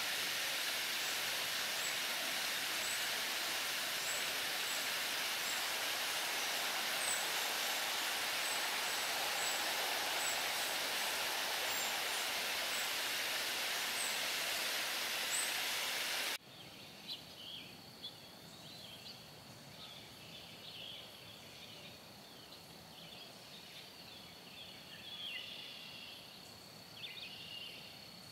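Water spilling over a stone dam into a pond, a steady loud rush with faint high chirps above it. About sixteen seconds in it cuts off suddenly to a quiet lakeside: a steady high insect drone with birds chirping.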